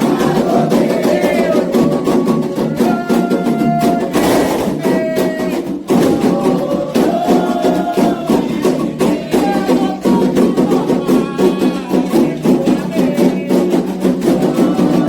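Candomblé ritual music: atabaque hand drums and a struck bell keeping a fast, steady rhythm, with voices singing over them.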